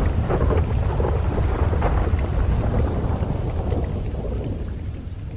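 A rolling thunderclap over steady rain: a deep rumble with crackling in its first couple of seconds, then a slow fade.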